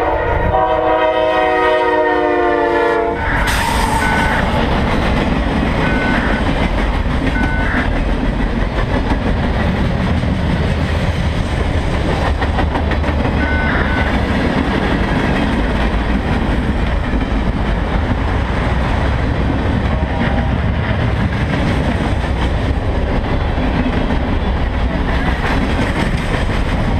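Freight locomotive air horn sounding a held chord for about the first three seconds, dropping slightly in pitch as the locomotive passes. It gives way to the steady rumble and clatter of a CSX freight train's cars rolling by close at hand, with a few brief high squeals.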